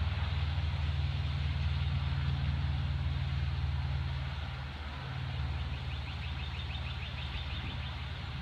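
Compressor running with a steady low hum. Its note shifts slightly about five seconds in, and a faint fast ticking joins over the last few seconds.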